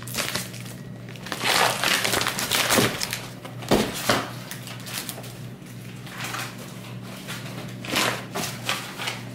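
Brown kraft paper packing rustling and crinkling as a boxed pistol is pulled out of it, with a sharp knock about four seconds in as the cardboard box is set down on the table, and more crinkling of paper near the end.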